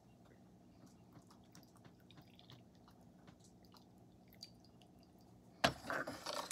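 Quiet handling of gaiwan and tea cups with a few faint clinks, then about five and a half seconds in a sudden short splash of liquid as the fourth infusion of tea is worked.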